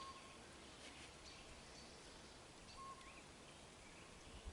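Near silence with a few faint, short bird chirps and whistles over a quiet outdoor hiss.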